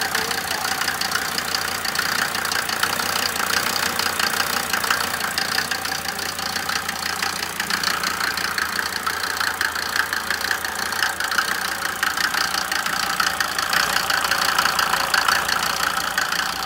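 Mercedes-Benz 300D diesel engine idling steadily with a fine, rapid ticking.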